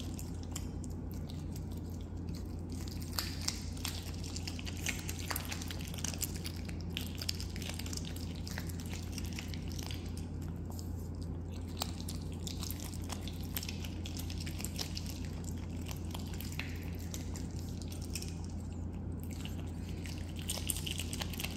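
Asian small-clawed otter chewing a whole raw abalone held in its paws: a dense, irregular stream of wet, chewy crunching and smacking clicks. A steady low hum runs underneath.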